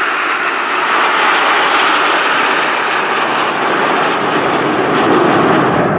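Jet noise from a formation of Aermacchi MB-339 jet trainers flying overhead, their Rolls-Royce Viper turbojets making a loud, steady rush. The sound deepens toward the end as the formation passes.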